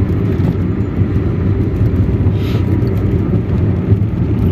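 Car driving along a mountain road, heard from inside the cabin: a steady low rumble of road and engine noise.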